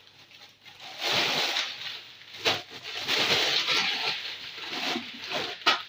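Rustling and crackling as a bag of chickpeas is handled, with sharper crackles about two and a half seconds in and again near the end.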